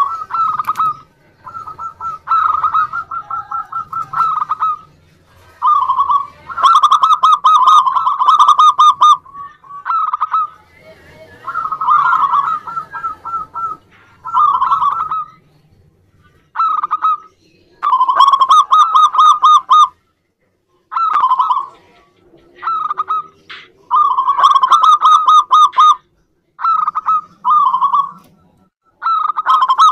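Zebra dove (perkutut) cooing song: loud phrases of quick staccato coos, each lasting one to three seconds, repeated over and over with short pauses between.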